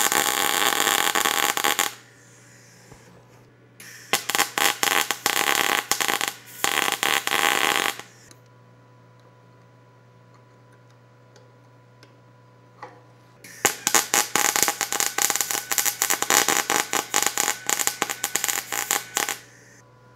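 MIG welder arc crackling in three bursts, about two, four and six seconds long, with short pauses between: weld being built up on a broken-off stud so a nut can be welded on to pull it out.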